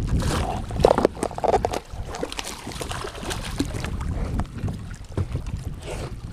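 Wind rumbling on the microphone aboard a fishing kayak, with scattered small knocks and clicks from gear and the hull. A few short pitched calls come about a second in.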